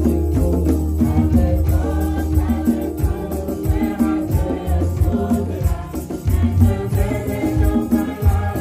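Gospel praise-and-worship singing: women's lead voices on microphones with the congregation singing along, over instrumental accompaniment with a deep sustained bass and a steady percussive beat.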